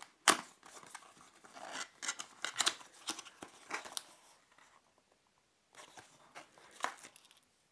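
A small cardboard box being opened by hand: a string of sharp scrapes and clicks as the tuck flaps are pulled free, then a short lull and a few lighter clicks near the end.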